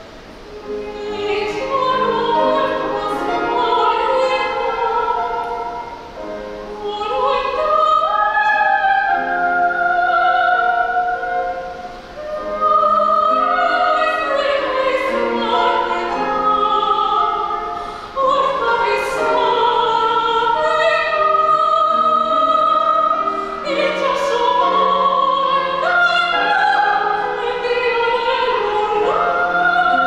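Operatic solo voice singing a zarzuela number with grand piano accompaniment, in long phrases with short breaks between them.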